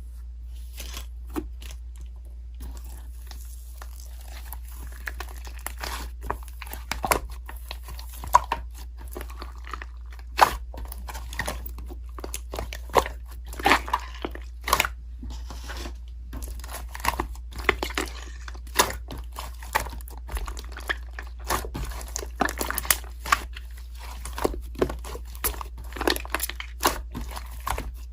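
Slime being squeezed and poked by hand, giving irregular crunchy crackles and sticky pops. A steady low hum runs underneath.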